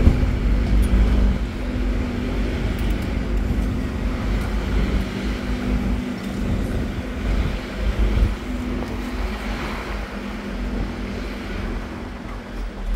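Sightseeing bus running through city traffic: a steady engine hum over a low rumble of road and traffic noise.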